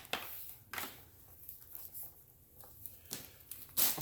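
Power cord of a Hoover Total Home Pet upright vacuum being wrapped around the vacuum by hand: about four short rustling handling sounds with quiet stretches in between.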